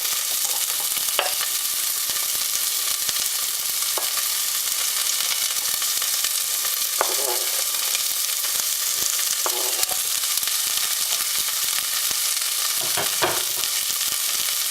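Garlic, anise and celery frying in hot oil in a pot with a steady sizzle. A few short scrapes or knocks from a utensil stirring come through now and then.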